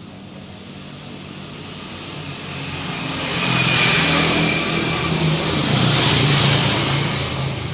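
A motor vehicle's engine and road noise swelling over a few seconds, loudest from about halfway through, as if passing by.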